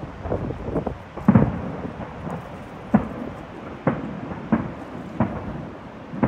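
Distant fireworks shells bursting in a string of low, rumbling booms, roughly one every half-second to a second, the loudest just over a second in.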